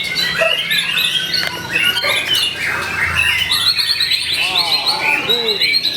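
White-rumped shama (murai batu) singing a fast, varied song of chirps and trills, joined from about four seconds in by lower, arching whistled notes.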